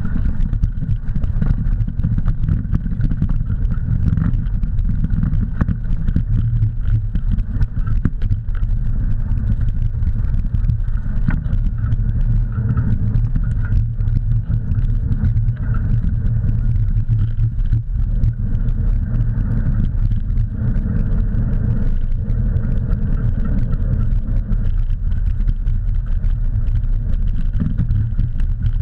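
Steady rushing rumble of wind and motion on the microphone while moving fast along a dirt trail behind a running harnessed dog.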